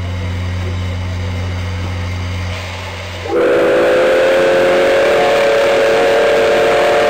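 The whistle of JNR Class C56 steam locomotive C56 160 blows about three seconds in: a loud, long chord of several tones held steady, with steam venting. Before it there is only a steady low hum.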